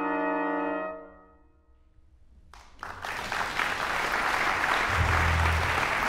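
A big band's brass and saxophones hold a final chord that cuts off about a second in and rings away in the hall. After a short hush, audience applause breaks out and builds.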